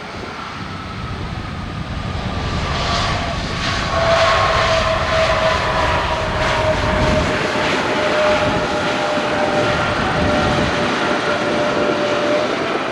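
Airbus A320neo airliner's jet engines during landing rollout: a loud, steady rush that swells about four seconds in, with a whine slowly falling in pitch.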